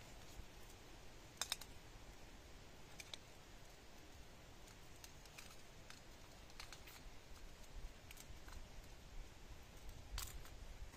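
Faint, scattered clicks and light taps from handling a small gas canister stove as its burner is screwed onto the canister, with sharper clicks about one and a half seconds in and near the end.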